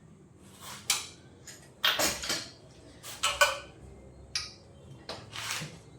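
Metal spanners clinking together as they are handled and sorted: a series of sharp, uneven metallic clinks, some with a brief ring.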